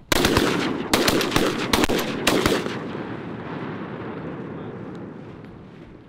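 A rapid volley of shotgun blasts from several hunters, about eight shots in two and a half seconds, with the reports echoing away afterwards.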